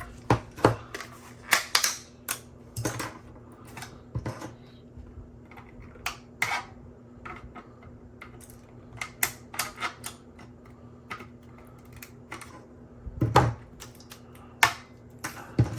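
Irregular sharp clicks and snaps of 3D-printed support material being pried and broken off a printed helmet part, with some louder knocks near the end.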